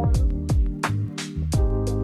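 Instrumental music with a steady drum beat.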